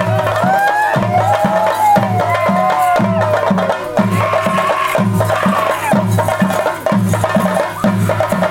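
Temple drumming for a ritual procession: steady drum strokes, about three a second, with a melody sliding up and down above them.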